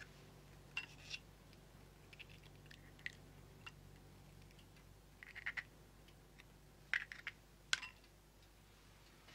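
Eggshell being handled as an egg is separated by hand over a glass bowl: a scatter of faint, short cracks and clicks of shell, the sharpest two about seven and eight seconds in.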